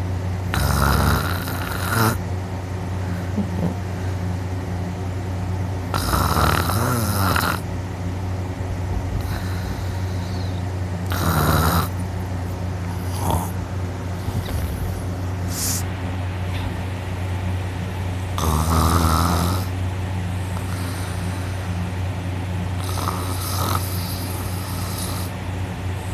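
A person snoring loudly through a wide-open mouth: five long, rasping snores about five seconds apart. The sleeper believes it is the soft palate vibrating hard. A steady low hum sits underneath.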